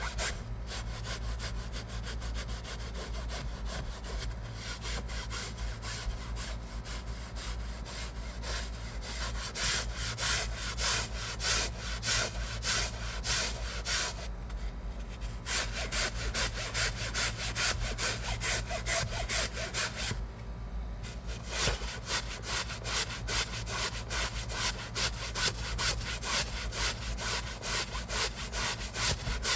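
A hand scrub brush scrubbing a fabric car seat in quick back-and-forth strokes, at about two strokes a second, pausing briefly twice.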